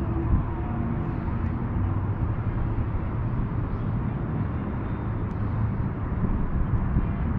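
Distant city road traffic: a steady low rumble with faint engine hums.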